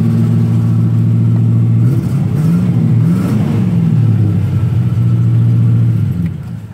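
Rover 3500 S's 3.5-litre V8 idling, blipped twice in quick succession about two to four seconds in and settling back to idle, then switched off about six seconds in. It runs sweetly, with nothing wrong to be heard.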